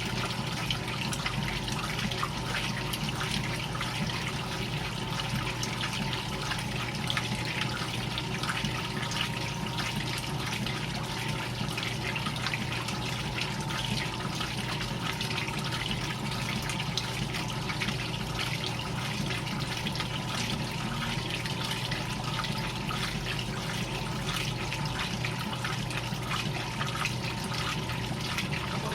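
GE Filter-Flo top-loading washing machine running, water sloshing and rushing in the tub over a steady motor hum.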